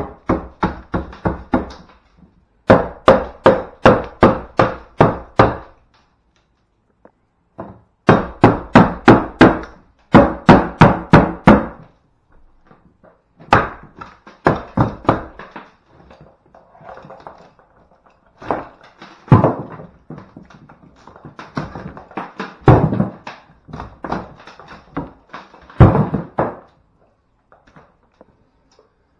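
Claw hammer driving nails into the timber of a window reveal: quick runs of blows, about three to four a second, with short pauses between runs, then three heavier single blows in the second half.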